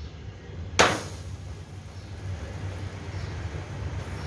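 Steady low rumble of a heated tandoor's burner, with one sharp knock about a second in.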